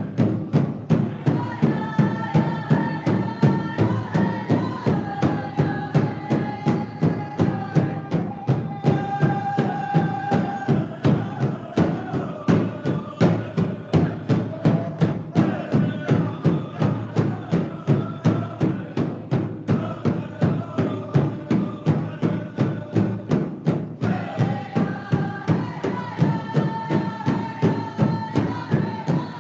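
Native American-style drum meditation music: a steady, even drumbeat under a held melody line that moves slowly from note to note.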